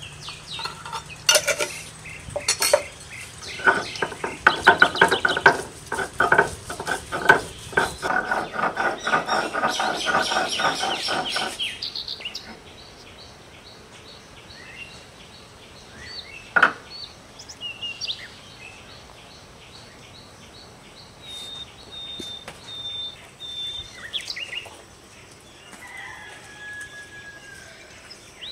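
Kitchen clatter of metal utensils against dishes and pans, busy and rapid for about the first twelve seconds, then dropping off to occasional clicks. Birds chirp in the background during the quieter part.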